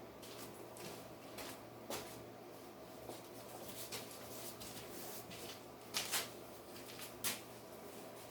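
Scattered light clicks and scrapes of hands cleaning metal chips off a freshly cut gear blank held in a dividing head, with a few sharper clicks about 2 s in, twice around 6 s and about 7 s in. A faint steady hum sits underneath.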